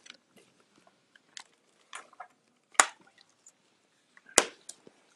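Scattered small clicks and taps from objects being handled on a tabletop, with two sharper knocks, about three seconds in and again a second and a half later.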